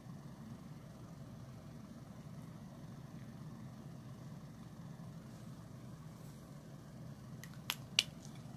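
Steady low background hum, with a few short sharp clicks near the end.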